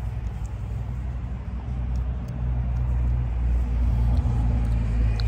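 A steady low rumble that grows a little louder about two seconds in.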